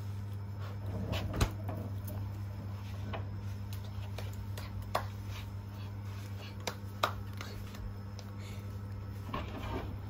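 Scattered light clicks and taps over a steady low hum, the loudest tap about a second and a half in.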